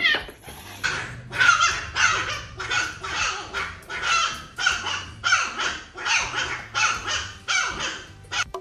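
A dog barking over and over in harsh, evenly spaced barks, about two a second.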